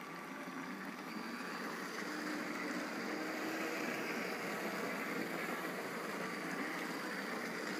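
LEGO toy train's electric motor running with a faint whine as its wheels roll steadily around the plastic track, growing slightly louder over the first few seconds.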